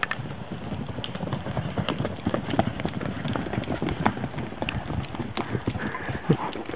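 A herd of reindeer running past at close range: a dense, irregular clatter of many hooves on the forest floor, with a few sharper knocks standing out.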